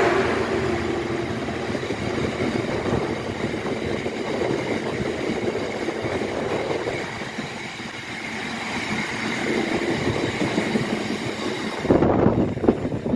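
Freight train of bogie tank wagons rolling past at speed, a steady rumble and clatter of wheels on rails. About twelve seconds in, the last wagon goes by and the sound gives way to gusts of wind buffeting the microphone.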